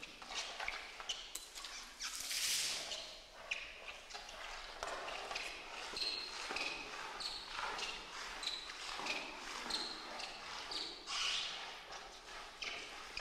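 Footsteps in rubber swim fins slapping on a wet floor, with short squeaks, and a splash of thrown water about two seconds in.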